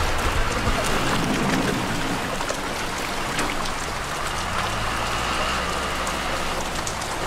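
Water splashing around a float-lined seine net being hauled through shallow river water, with many small splashes from fish thrashing at the surface inside the net.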